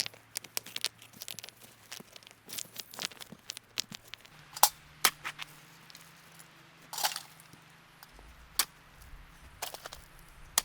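Dry sticks and kindling snapping and crackling in irregular sharp cracks. The loudest snaps come a little after four seconds in and around seven seconds in.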